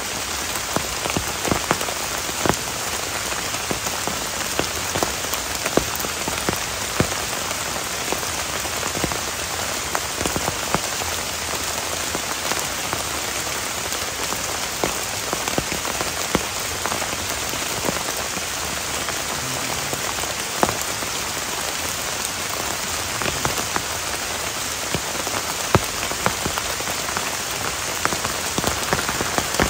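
Heavy rain falling steadily, a dense hiss with many single drops striking sharply and irregularly close by.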